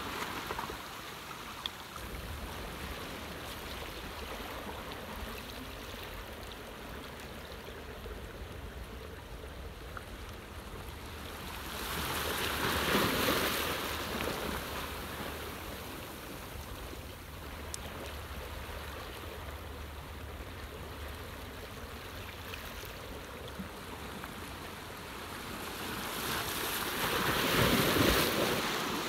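Sea waves washing in against the shore, a steady wash with two larger surges that swell and fade, one about twelve seconds in and one near the end.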